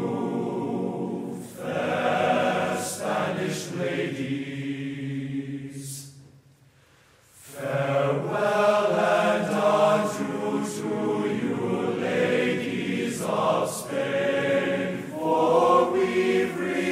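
Choir singing a slow sea shanty as background music, with a brief pause about six and a half seconds in.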